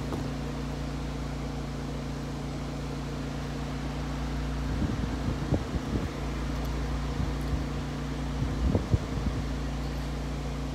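A steady low mechanical hum, with a few soft rustles and knocks about five to six seconds in and again near the end.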